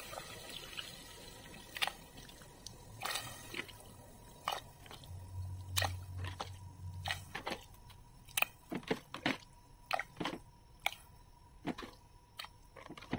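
Water in a pressure cooker pot with beef chunks in it, faint, with irregular pops and drips from bubbles at the surface, more frequent in the second half.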